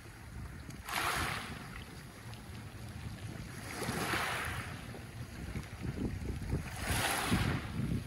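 Small sea waves washing up onto a pebble beach, each wash a hiss. There are three of them, about three seconds apart, over a steady low rumble.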